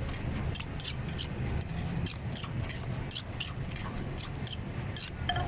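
Wooden pestle pounding green papaya salad in a mortar: sharp, regular knocks, about three to four a second, over a steady low traffic rumble.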